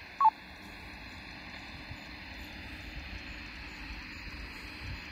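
Steady static hiss from a Baofeng UV-5R handheld radio's speaker as the repeater's tail hangs on after the transmission ends, with a short beep about a quarter of a second in.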